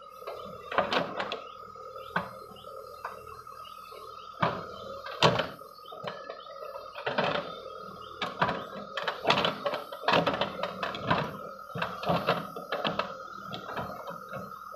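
Cat 424B2 backhoe loader at work, its backhoe arm and bucket giving irregular knocks and clunks as it digs and drags soil, the loudest about five seconds in. A steady high whine runs underneath.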